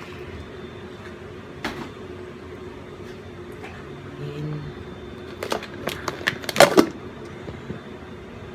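Crinkles and knocks from plastic-wrapped food packages being handled, clustered about five to seven seconds in, over a steady low room hum with a single click near the start.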